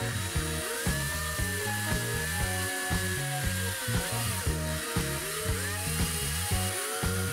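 Handheld electric drill boring through a thin aluminium strip, its motor whine rising and falling several times as it speeds up and slows. Background music with a stepping bass line plays throughout.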